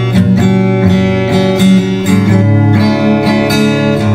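Acoustic guitar strumming chords in an instrumental break of a slow ballad, with the chord changing about two seconds in.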